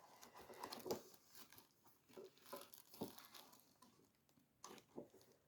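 Faint, scattered rustling and small clicks of paper and plastic packaging being handled, a knit-in-a-box kit being shown.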